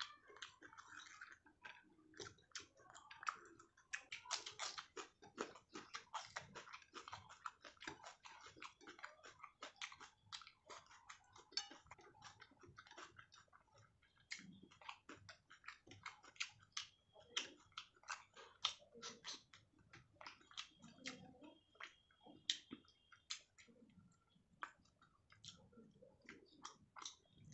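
Faint, close-miked chewing and eating mouth sounds: a steady, irregular stream of small wet clicks and smacks.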